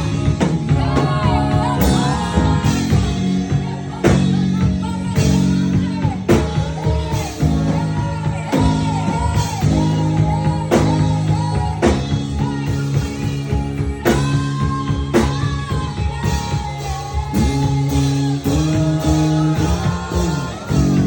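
Live worship music: a voice singing over guitar, sustained chords and a steady drum beat.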